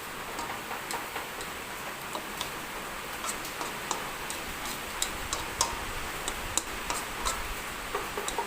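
A pan of chicken feet adobo sizzling as its sweet soy and ketchup sauce cooks down: a steady hiss with irregular sharp pops and clicks.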